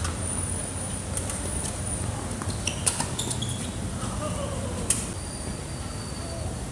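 A few sharp knocks of tennis balls on racket strings or the hard court, the loudest about three and five seconds in, with short high squeaks of tennis shoes on the court surface and a steady low background hum.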